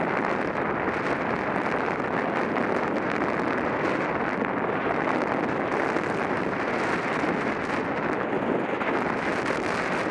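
Steady rush of wind on a helmet-mounted camera during a mountain-bike descent, mixed with the rolling noise of knobby tyres on a dirt singletrack.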